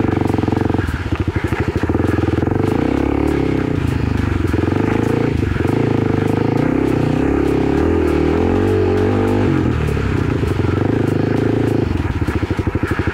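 Kawasaki KLX300's single-cylinder four-stroke engine running under way on a dirt trail, its revs rising and falling throughout.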